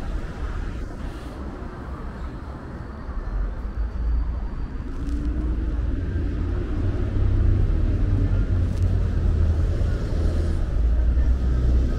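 City street traffic with a motor vehicle engine running close by; the low rumble grows louder from about four seconds in, and the engine note rises and falls in pitch around the middle.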